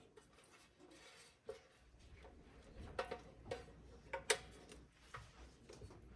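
A few faint, scattered clicks and knocks from handling an air fryer and its basket, the loudest a little past the middle.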